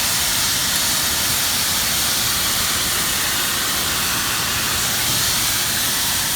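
Gas brazing torch flame hissing steadily during hand brazing of a valve.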